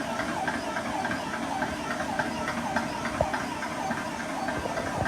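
A portable high-pressure PCP air compressor running steadily, its pump making an even, rhythmic mechanical beat over a hiss.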